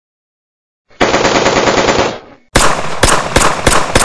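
Automatic gunfire sound effect: silence at first, then a dense continuous burst about a second in lasting just over a second. After a short gap comes a run of separate sharp shots, about four a second, each followed by ringing.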